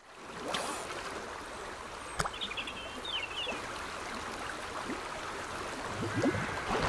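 Creek water running over rocks, with a bird chirping a quick run of short notes around two and a half to three and a half seconds in. A single sharp click comes just before the birdsong, and a few low knocks sound near the end.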